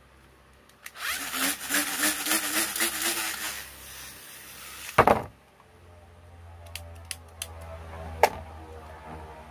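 Infinity Nado spinning-top launcher wound up by repeated pulls on its string handle, a rattling whir lasting about two and a half seconds. About five seconds in, a sharp click as the release button drops the top, which then spins in the plastic arena with a steady low hum and a few light ticks.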